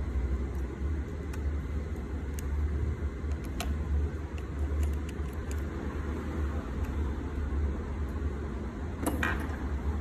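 Steady low hum of background noise, with a few faint, light clicks of small metal screws and a precision screwdriver being handled, about two and a half seconds, three and a half seconds and nine seconds in.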